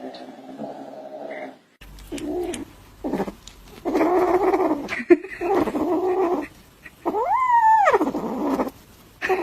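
A low, continuous growl for the first second and a half, then a series of about six drawn-out cat meows and yowls, one near seven seconds in rising and then falling in pitch.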